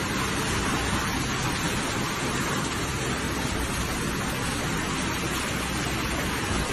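Flash floodwater rushing and churning down a narrow street: a steady, loud rush of water.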